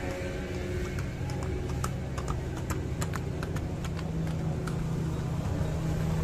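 A steady low engine-like hum, with a run of sharp, irregular clicks or taps from about a second in until nearly five seconds in.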